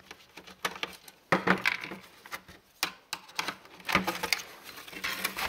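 Screwdriver, small screws and the circuit board clicking and clattering on a tabletop as the main board of a calculator is unscrewed and freed from its plastic case. A few faint clicks, then from about a second in a quick run of sharp knocks and clinks.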